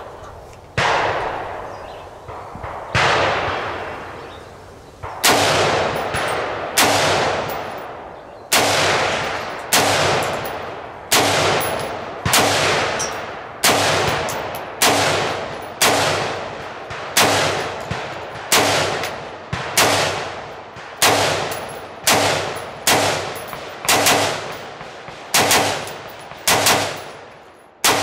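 Gunshots fired one at a time, about two dozen in all: the first few about two seconds apart, then a steady pace of roughly one a second. Each shot rings out in an echo that fades over about a second.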